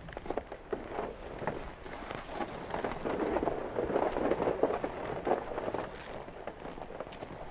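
Boots crunching on snow-covered lake ice at a brisk walking pace, a rapid run of short crunches that grows louder through the middle.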